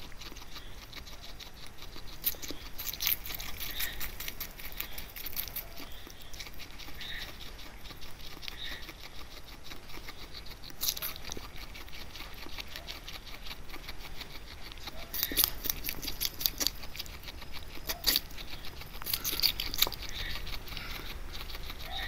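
A guinea pig chewing chunks of raw pear: rapid crisp crunching and munching clicks that come in thick runs with short lulls between them.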